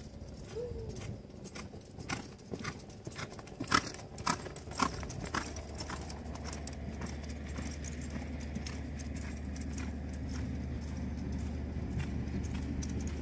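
Hoofbeats of a liver chestnut cutting-horse mare loping on arena sand: irregular thuds through the first half, the loudest a little under four seconds in. From about halfway a steady low rumble comes up and stays.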